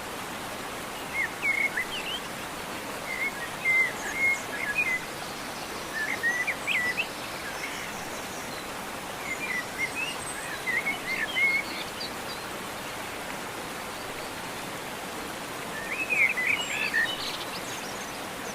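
A songbird chirping in short bursts of quick, twittering notes, repeated every few seconds, over a steady hiss of outdoor background noise.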